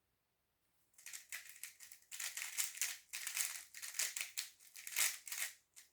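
A 3x3 speedcube, a Magic Clothes YS3M, turned very fast by hand: a dense run of plastic clicking and rattling from the turning layers that starts about a second in.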